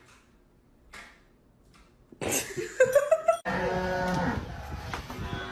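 A cow mooing: a long, drawn-out moo starting about halfway in, after a few faint clicks.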